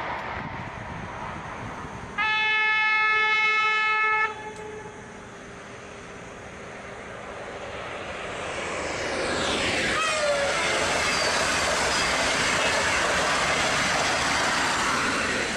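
A high-speed train's horn sounds one steady blast of about two seconds, starting and stopping abruptly. Later a high-speed electric train approaches and rushes past at speed: a rising rush of air and wheel noise, with a brief falling whine as it goes by, then a loud steady rushing.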